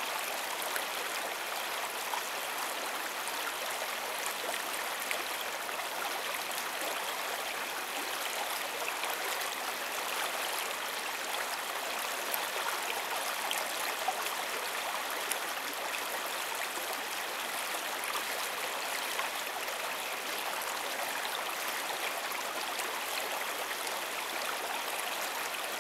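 Open stream water running steadily, an even rushing with no breaks.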